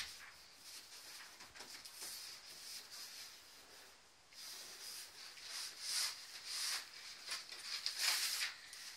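A large cardboard box and paper being handled, rustling and scraping in irregular bursts, loudest about eight seconds in.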